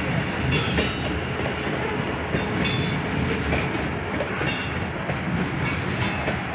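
Freight train of tank cars rolling past: a steady rumble of wheels on rail, with clicks as the wheels cross rail joints and brief high wheel squeals that come and go.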